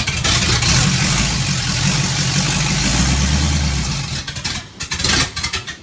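A vehicle engine running loudly under a heavy rushing noise. It eases off about four seconds in, with a few uneven rises before it stops abruptly.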